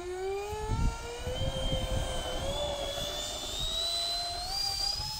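Twin 64 mm Cyclone Power electric ducted fans in an RC SR-71 Blackbird jet spooling up to full throttle for the takeoff run. Their whine rises quickly at first, keeps climbing more slowly, and levels off to a steady high pitch near the end.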